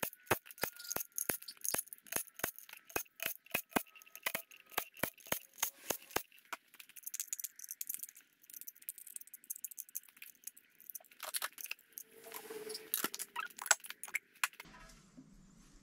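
Cordless impact driver unscrewing the oil pan bolts of a Renault J7R engine: a run of sharp metallic clicks, about four a second, over a faint whine. Near the end come more metal clinks as the pan is pried loose with a screwdriver.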